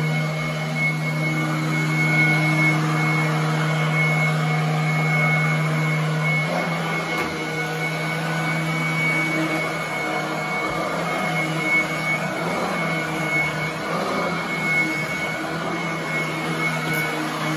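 Royal commercial upright vacuum running on carpet: a steady motor hum under a high, thin whine and rushing air. The motor's pitch dips slightly about six seconds in.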